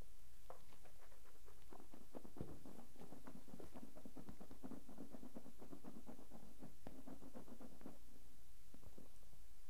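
Mouth sounds of tasting beer: soft, wet clicks and smacks as a sip is worked around the palate, thickest in the middle and dying away near the end.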